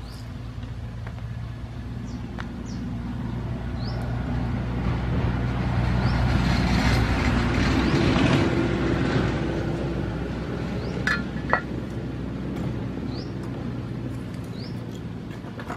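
A passing motor vehicle's engine drones, growing louder to a peak about halfway through and then fading. Two sharp clicks sound about two-thirds of the way in.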